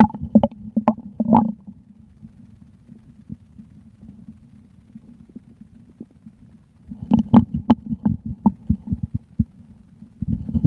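Human stomach growling: a low rumble with bursts of gurgling, sloshing pops, a few near the start and a long run of them from about seven seconds in.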